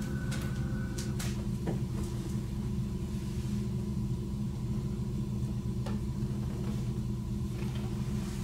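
A steady low rumbling drone runs under a few light clicks and knocks as kamishibai picture cards are slid out of and into their wooden frames. A held musical note stops about a second in.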